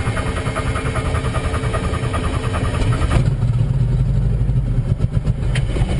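Enstrom F-28F helicopter's Lycoming 360 four-cylinder piston engine being started while hot: the starter cranks with a fast rhythmic beat, and about three seconds in the engine catches and runs with a heavier, steadier sound.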